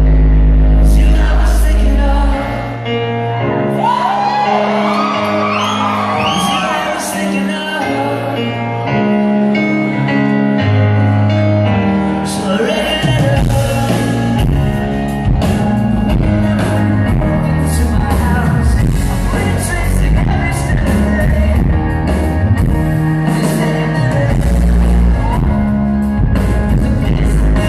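Live band playing a pop-rock song: grand piano and drums under a sung lead vocal.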